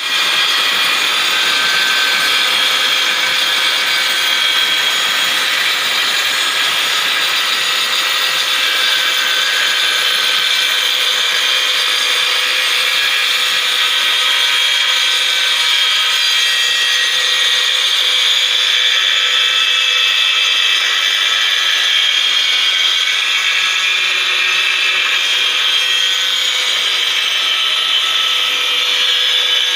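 Heavy rain falling, a loud steady hiss that does not let up.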